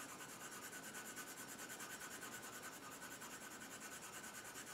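Coloured pencil rubbing faintly on paper in quick, even back-and-forth shading strokes.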